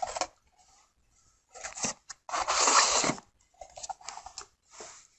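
Packaging being handled during an unboxing: several short rustling, crinkling bursts with gaps between, the longest and loudest about halfway through.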